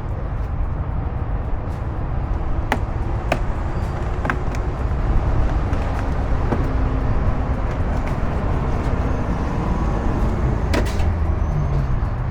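A few light clicks and knocks of hands and tools working the plastic trim and clips of a car door panel, over a steady low rumble.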